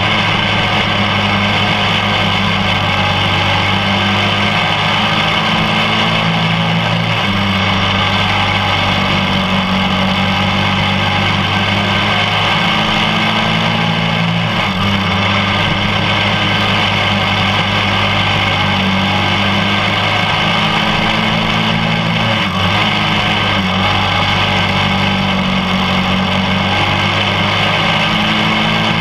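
Quarter midget race car's small single-cylinder engine running hard and close up during a dirt-oval heat race. The engine note is loud and steady, shifting slightly every several seconds as the car circles the track.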